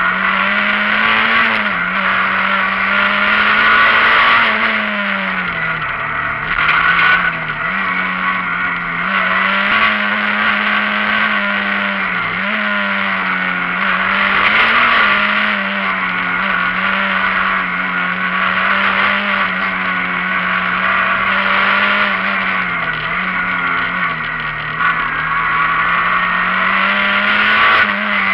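Rally car engine heard from inside the cabin, running hard along a stage. The revs climb and then drop back sharply many times through the run.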